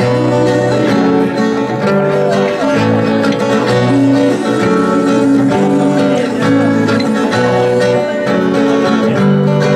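Live instrumental music led by plucked strings, with held low notes changing about once a second under a busier upper part.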